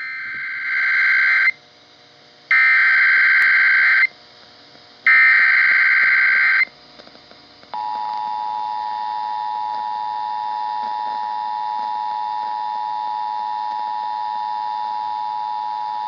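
Emergency Alert System broadcast through a clock radio's speaker: three buzzy bursts of SAME digital header data, each about a second and a half long with a second's gap between them, then, about eight seconds in, the steady two-tone attention signal. It announces a Child Abduction Emergency (Amber Alert).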